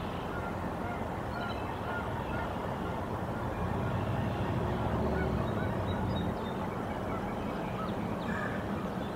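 Canada goose honking over steady outdoor background noise, with a low rumble swelling for a couple of seconds in the middle.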